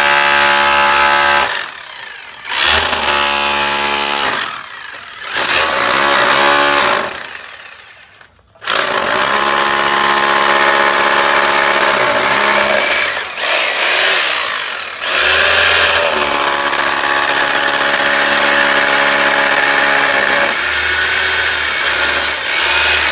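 Power drill with a long masonry bit boring into a plastered brick wall. It runs in several short bursts with brief stops over the first eight seconds, then runs almost steadily.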